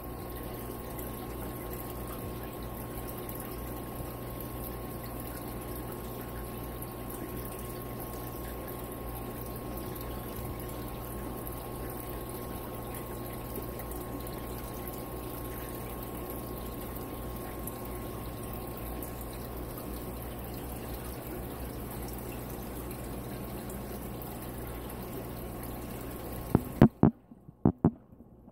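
Steady bubbling and trickling of an aquarium's air-driven sponge filter and airline, over a steady hum. A few sharp knocks come near the end.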